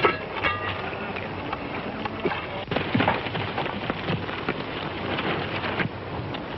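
Hoofbeats of several horses galloping in on dirt: a dense, unbroken run of hoof strikes.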